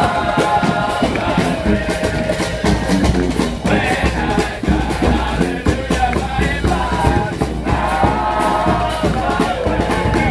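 Street brass band playing a lively tune: horns hold the melody over a steady beat of drums.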